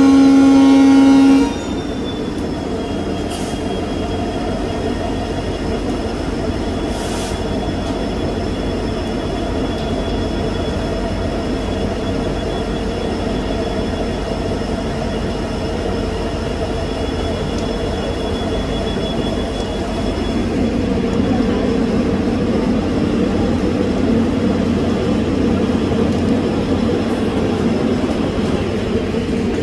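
A locomotive horn blows one held chord and cuts off about a second and a half in. Then comes the steady rumble of a passenger train running alongside on the next track, growing a little louder from about twenty seconds on.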